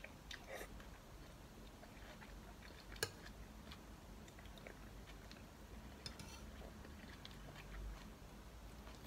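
Faint close-up eating sounds: a person chewing spoonfuls of sujebi (dough-flake soup), with a metal spoon clicking against the bowl. One sharp clink about three seconds in and a smaller one about six seconds in.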